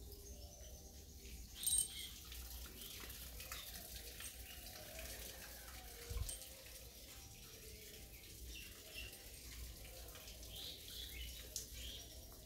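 Faint outdoor ambience: birds chirping now and then over a low rumble. There is a short sharp sound near two seconds in and a brief low bump about six seconds in.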